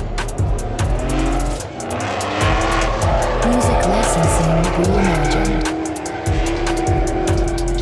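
Two drift cars, one a BMW E36, sliding in tandem: engines revving up and down with tire squeal, under background music with a steady beat.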